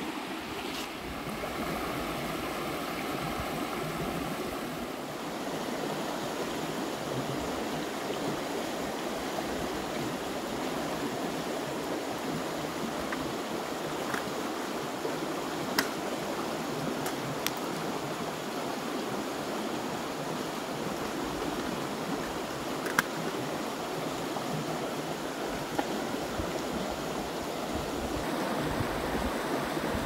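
A shallow, rocky river rushing steadily over stones. A few single sharp clicks fall about halfway through.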